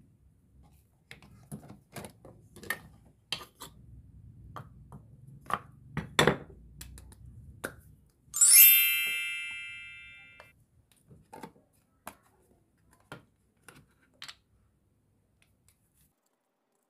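Light clicks and taps of small toy kitchen pieces being handled. About eight seconds in there is a single bright, bell-like ding that rings out for about two seconds, followed by a few more scattered clicks.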